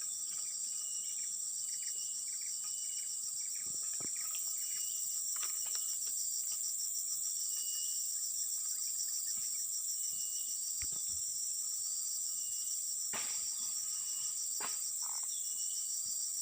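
Insects trilling: a steady, high-pitched, rapidly pulsing buzz, with short lower chirps repeating about once a second and a few faint clicks.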